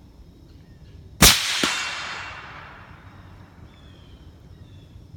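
A single shot from a suppressed Savage .308 bolt-action rifle fitted with a YHM suppressor, fired while sighting in. A second, fainter crack follows about half a second later, then a long rolling echo dies away over about two seconds.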